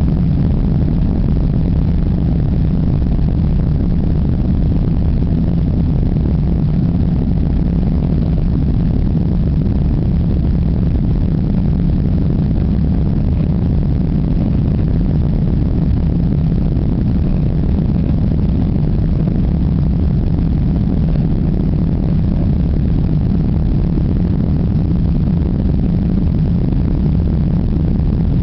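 Jet airliner's engines at takeoff thrust, heard from inside the passenger cabin as the plane lifts off and climbs: a loud, steady low rumble.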